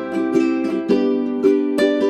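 Background music: a plucked string instrument playing a melody, about three or four notes a second, each note struck and then fading.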